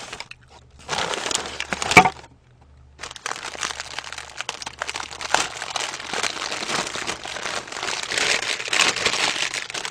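Paper fast-food wrapping crinkled and pulled open by hand while a burger is unwrapped. A crisp rustle with one sharp crack about two seconds in, a brief pause, then steady crinkling that grows louder near the end.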